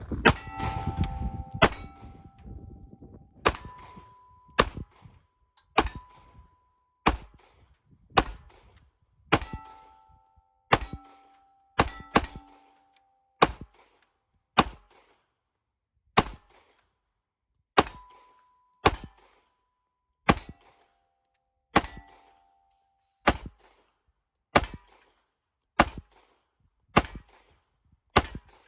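Steady, slow single shots from a firearm, about twenty-two of them roughly a second and a quarter apart. Many shots are followed by a short metallic ring.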